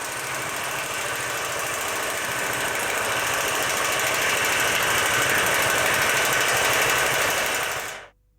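Steady mechanical running noise with a rapid rattle, growing slowly louder and then cut off abruptly near the end.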